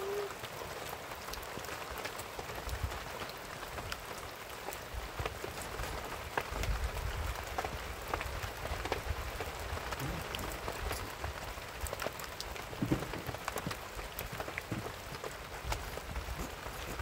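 Steady rain falling on a plastic sheet stretched over a canvas tent, with many individual drops ticking sharply.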